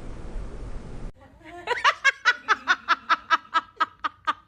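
A person laughing in a quick run of short, high-pitched bursts, about five a second, starting a little under halfway in. Before it, a steady low hum cuts off about a second in.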